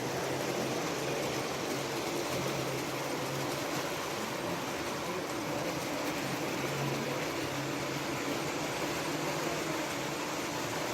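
Model train running on its track: a steady rolling rumble of wheels on rail with a faint motor hum.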